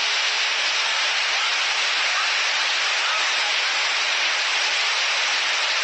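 Heavy rain pouring down onto a transparent terrace roof and the street: a loud, steady hiss.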